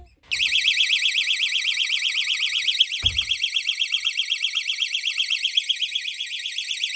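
Door stop alarm triggered by the door opening onto it: a loud, high-pitched electronic alarm warbling rapidly, about eight times a second, cutting off abruptly near the end. A dull thump sounds about three seconds in.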